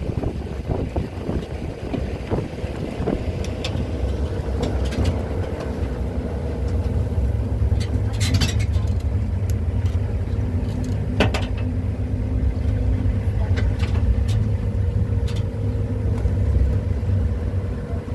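Open-roofed safari vehicle driving along a dirt track: a steady low engine and road rumble with an even hum, and scattered clicks and rattles from the body over the bumps.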